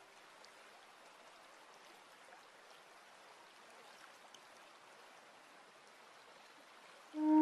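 Faint, steady trickle of water from a stream flowing over stones in a decorative garden pond, with a few tiny drips. Flute music comes in loudly near the end.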